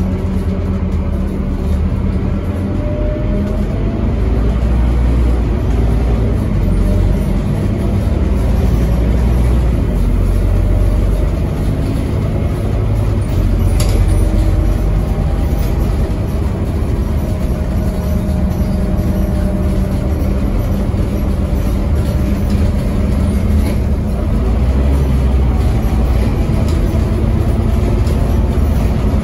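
Scania N270UD double-decker bus's five-cylinder diesel, heard from inside the saloon while driving: a steady low engine rumble whose note climbs slowly a couple of times as the bus pulls along, over road and body noise.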